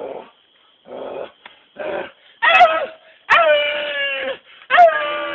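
A man imitating a werewolf: short rough growls about once a second, then loud howls, the longest held about a second, dropping slightly in pitch and then holding steady.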